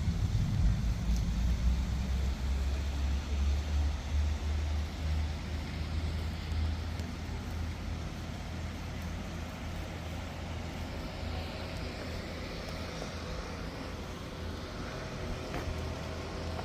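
Street traffic: a loud, low engine rumble from a passing vehicle, strongest in the first few seconds and fading away, then a passing hiss of tyres on the wet road partway through.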